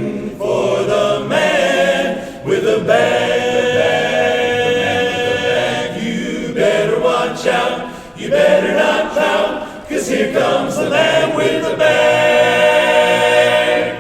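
Men's barbershop chorus singing a cappella in close harmony through the closing phrases of the song, ending on a long held final chord that is released near the end.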